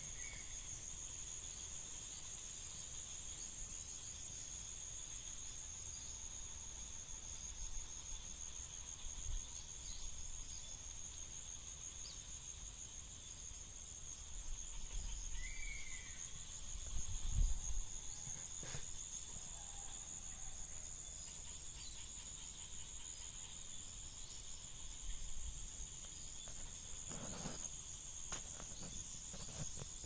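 A steady, high-pitched insect chorus, a fast pulsing trill that runs unbroken. Two short chirps, one at the very start and one about halfway, and a few low bumps a little after halfway and near the end.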